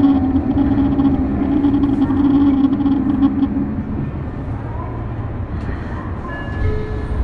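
Tokyo Metro 03 series chopper-controlled motor car running, heard from inside the car: a steady hum that fades out about three and a half seconds in, leaving the low rumble of the wheels on the rails.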